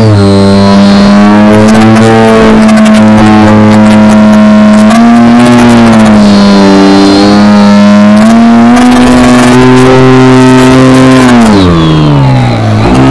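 Motor and propeller of a Future Model Edge 540T RC aerobatic plane, heard from a camera inside its cockpit, running loud with a pitch that rises and falls as the throttle changes. Near the end the pitch drops steeply as the throttle is pulled back, then picks up again.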